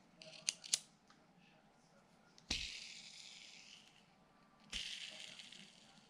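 Metal tactical pen being worked in the hand: two light clicks, then two sharp snaps, each followed by a high hiss that fades over about a second.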